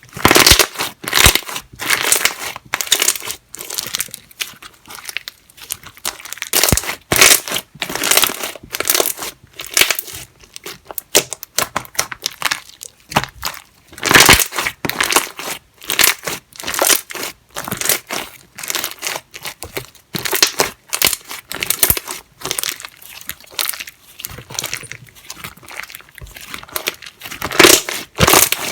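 Hands kneading, pressing and stretching slime: a dense, irregular run of sticky noisy pops and squishes, several a second, with brief pauses between handfuls.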